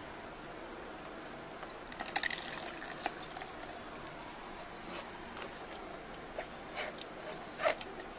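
Ground beetroot pulp being poured and strained through a plastic strainer into a steel vessel, with scattered light clicks and taps of the spoon and utensils.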